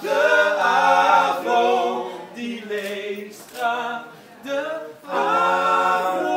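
Small male a cappella group singing a jingle in close harmony, several voices together in short phrases with brief breaks between them.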